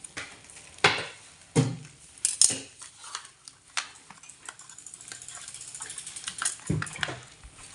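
A package being handled and opened: several sharp knocks and clatters, the first few about a second apart and another near the end, with crinkling and small clicks of packaging in between.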